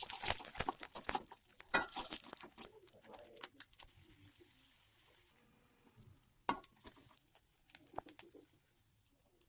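Kitchen utensil clatter: a quick run of sharp clicks and scrapes over the first three seconds, then a few scattered knocks.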